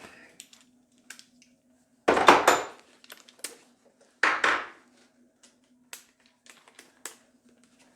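Metal hand tools and sockets clattering and clinking, with two louder rattling bursts about two seconds apart and small clicks in between, over a faint steady hum.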